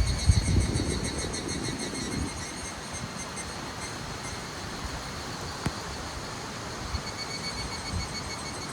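Insects trilling: a high, rapidly pulsing chirring that fades for a while in the middle and comes back near the end. Wind buffets the microphone with a low rumble during the first two seconds.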